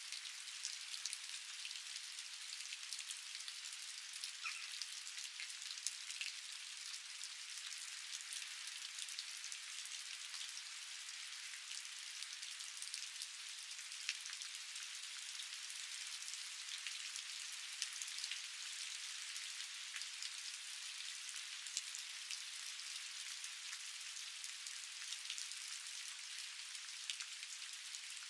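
Steady rain: an even high hiss with many separate drops ticking on surfaces throughout, and no low rumble.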